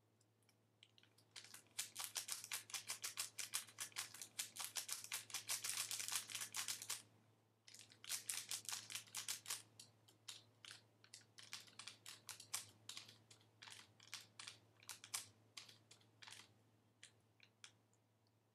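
Typing on a keyboard: a fast, dense run of key clicks lasting about five seconds, a short pause, then another quick run that thins out into scattered single keystrokes before stopping.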